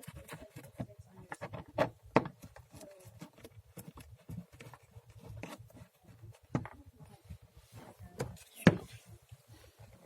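Irregular knocks and clicks as the parts of a portable chiropractic table are handled and lined up for bolting, with the sharpest knocks about two seconds in and again near the end.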